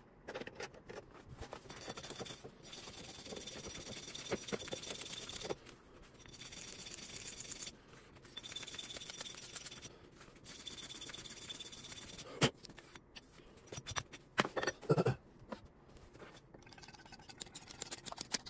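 Compressed-air tool hissing with a high whistle in four bursts of two to three seconds each, cleaning the bearing seat inside an A/C compressor pulley. Then a few sharp metal knocks and scrapes as the pulley is handled at the vise.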